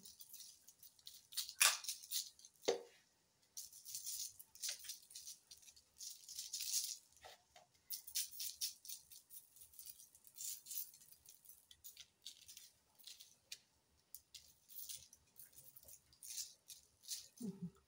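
Granulated sugar sprinkled by hand in pinches over raw cookie dough on a parchment-lined baking tray: faint, repeated hissy patters of falling grains as fingers dip in and out of a plastic tub. There are two light knocks in the first few seconds.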